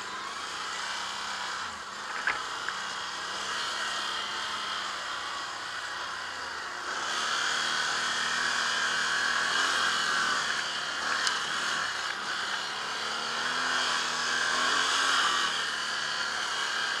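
ATV engine running under way, its pitch drifting up and down a little with the throttle, beneath a steady hiss of riding noise that grows louder about seven seconds in.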